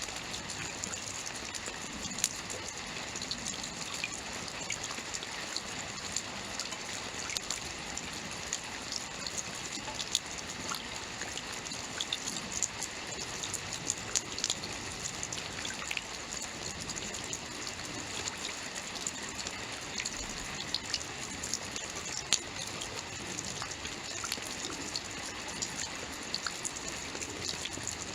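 Steady rainfall, an even hiss of rain with many small sharp drop ticks scattered through it.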